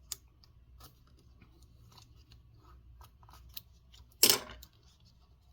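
Scattered light clicks and scratches of hands working at a laptop display, with one short, loud crackling rip about four seconds in as the adhesive strip holding the LCD panel is peeled.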